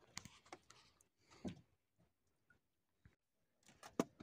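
Near silence broken by a few faint, scattered clicks and knocks, the sharpest about four seconds in.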